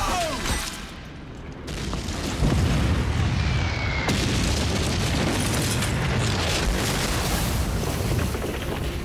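Explosions and battle noise in a war-film soundtrack: a deep, sustained rumble that swells in about two and a half seconds in and holds steady.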